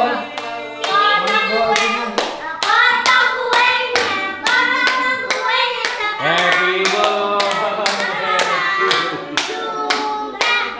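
Voices singing together while hands clap in a steady beat, about two claps a second.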